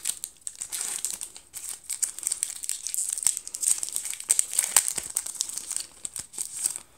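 Pokémon booster pack's foil wrapper crinkling and tearing as it is pulled open by hand, a dense crackle that thins out near the end.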